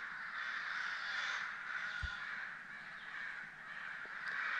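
A flock of crows cawing together from their rookery, many calls overlapping into a steady chorus.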